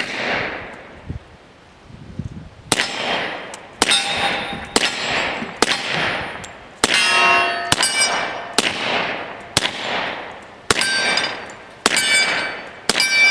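Suppressed FNP-45 Tactical .45 ACP pistol with a YHM suppressor fired about a dozen times: one shot, a pause of over two seconds, then a steady string of roughly one shot a second. Each shot is followed by the ringing clang of a steel target being hit.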